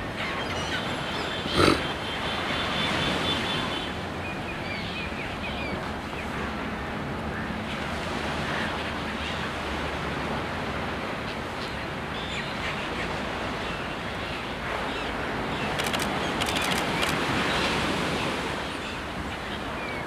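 Surf washing steadily on a beach, with a few short calls from a flock of crested terns and gulls, mostly in the first few seconds. A single sharp knock stands out about a second and a half in.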